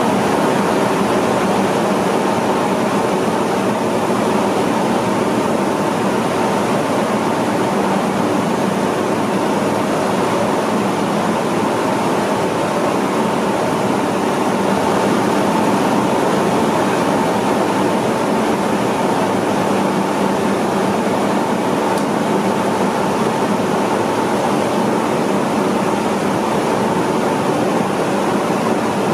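Rice mill machinery running steadily: a constant mechanical drone with a steady hum that does not change.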